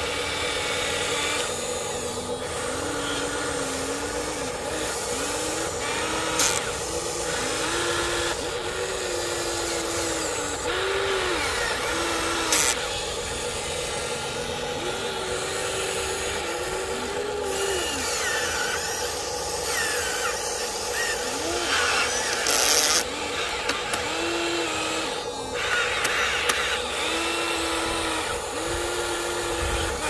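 Huina 1593 radio-controlled model excavator's electric motors whining as it digs and swings, over a steady hum. The whine comes in short runs that rise and fall in pitch with each boom, arm and bucket movement. A few sharp clicks sound, about three of them.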